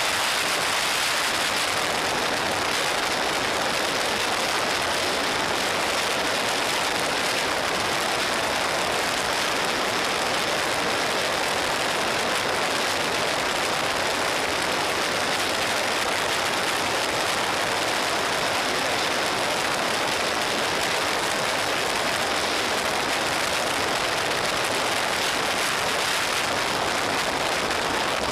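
Steady rush of wind over a motorcycle-mounted camera's microphone at freeway speed. It is an even hiss with no clear engine note or sudden sounds.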